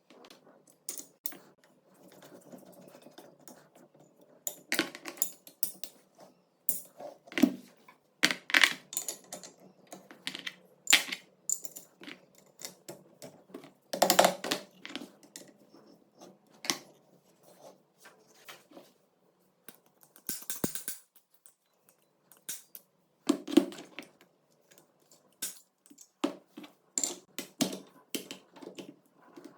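Irregular clicks, taps and knocks of metal gun parts and tools being handled, a few of them louder, with short quiet gaps between.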